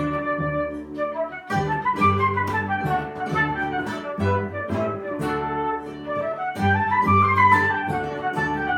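Small acoustic ensemble playing an instrumental Brazilian medley: a melody runs up and down in quick scales over plucked chords and a bass line.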